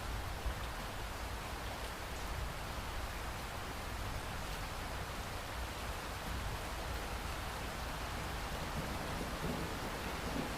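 Steady, even rain falling, with a low rumble of thunder starting to build near the end.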